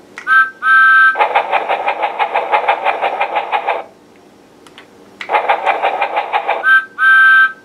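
Electronic steam-train sound effects from the small speaker of a Thomas Project and Play projector toy: short whistle toots, then a run of fast rhythmic chuffing. After a pause there is more chuffing, and the whistle toots again near the end.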